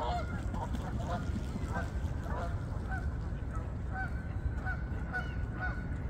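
A flock of geese honking, short calls following one another several times a second, over a steady low rumble.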